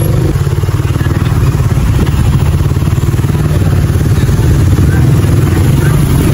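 Motorcycle engine running steadily at low speed, heard from on the bike as it filters slowly through stopped traffic on a wet road.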